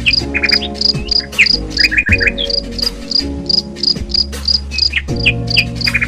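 Insects chirping in a steady pulse, about three chirps a second, with birds chirping, over soft background music of sustained low chords.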